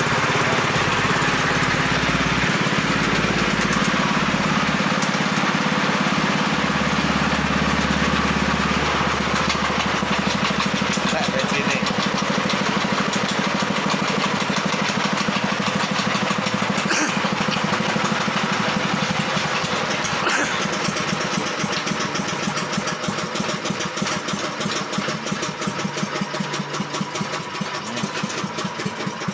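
Small Firman stationary engine running steadily, driving a rice thresher's spinning drum and winnowing fan through belts. It gets a little quieter over the last several seconds.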